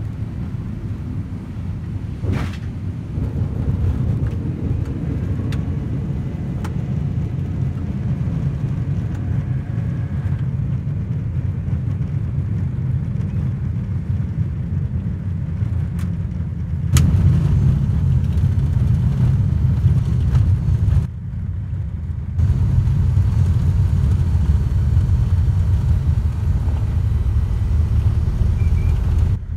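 Engine drone and rumble heard inside the cockpit of a Britten-Norman Islander, a light twin piston-engine aircraft, as it rolls out after landing and taxis. Two sharp clicks sound, one a couple of seconds in and one about halfway through, and after the second the drone gets louder. The sound dips briefly a few seconds later.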